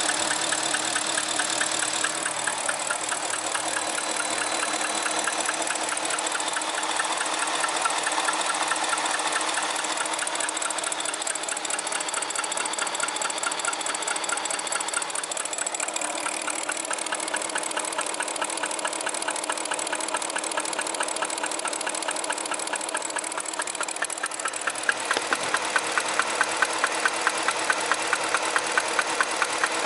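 BMW engine running with a fast, even ticking knock. Near the end a louder, regular knock of about two or three a second comes in.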